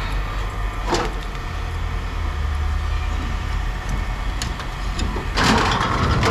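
A steady low engine rumble, with a sharp knock about a second in and a burst of clattering near the end, like scrap metal being handled.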